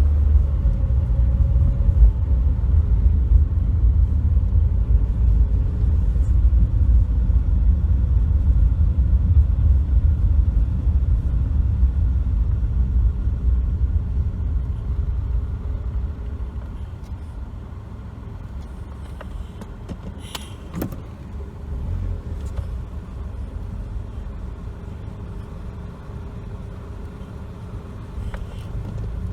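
A car driving, with a steady low rumble of road and engine noise. The rumble eases noticeably about halfway through, and a couple of faint clicks come later.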